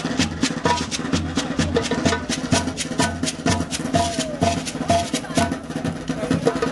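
Music with a busy percussion beat of quick, clicking strokes over a steady, repeating bass pulse.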